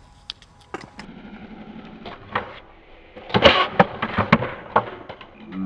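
Skateboard wheels rolling on concrete, then about three and a half seconds in a cluster of sharp cracks and clatter as the board is popped and hits the concrete in a bail.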